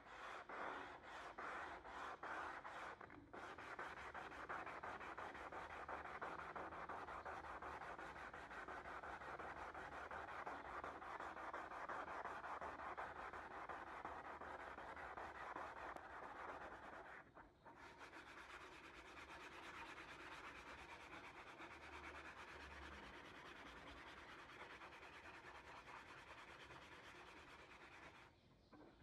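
A white pad rubbed by hand in rapid back-and-forth strokes along a steel sword blade: a steady scratchy rubbing, with a brief pause a little past halfway.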